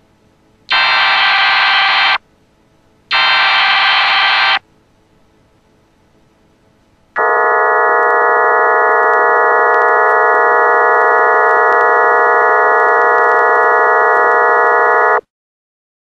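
EAS tornado-warning alert put through the stacked-pitch 'G-Major' effect. Two harsh, buzzy digital header bursts come about a second apart, then a pause, then the attention signal as a loud, steady chord of many tones for about eight seconds that cuts off suddenly.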